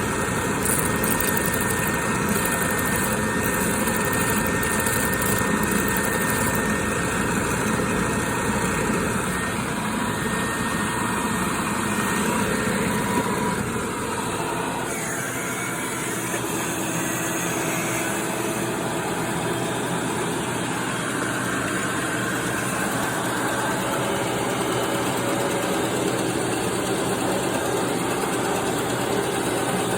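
Bandsaw running steadily; its deep rumble drops away about halfway through.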